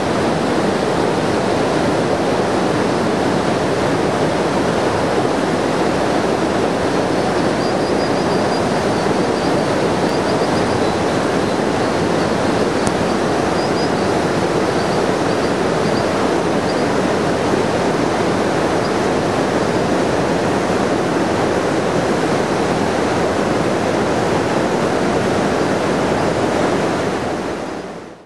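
Steady rush of a fast mountain river over rocks, the loudest sound throughout. From about 8 to 18 s in, a faint series of short high-pitched calls rides over it: a female American dipper begging the male for food at the nest. The sound fades out at the very end.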